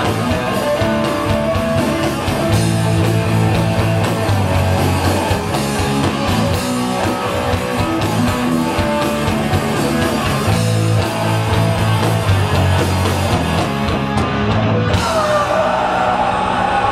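Rock band playing live at full volume: heavily distorted guitars, bass and drums. About fifteen seconds in, the band texture breaks and wavering, sliding tones come in.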